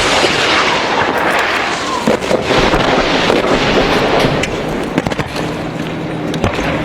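Military rocket salvo: rockets launching in quick succession, making a loud continuous rushing noise with sweeping whooshes and sharp crackling. It eases into a steadier low hum near the end.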